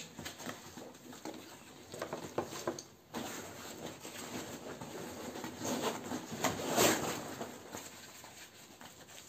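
Rustling and scraping of the fabric straps, webbing and pouches of an SSO Smersh vest as they are handled and sorted, in irregular bursts, loudest about seven seconds in.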